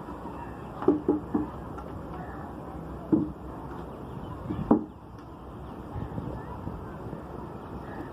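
A handful of short knocks over steady background noise: three in quick succession about a second in, one near three seconds, and a pair a little before the middle.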